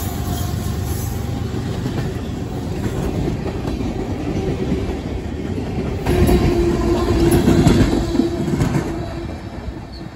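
Freight cars of a CSX train rolling past at speed, their wheels clicking over the rail joints. The sound gets louder about six seconds in, with a steady tone running through it for a few seconds, then fades near the end.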